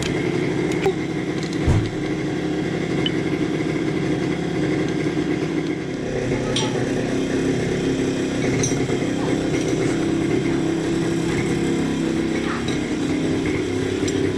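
An engine running steadily at a constant speed, with a few light metallic clinks over it.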